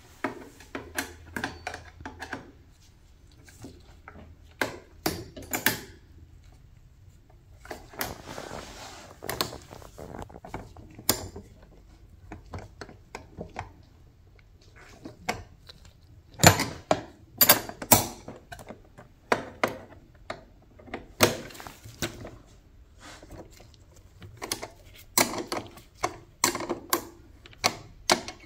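Hand tools working the fender eliminator's mounting bolts into nylon-insert lock nuts: runs of short metal clicks and knocks with pauses between, the loudest cluster a little past halfway.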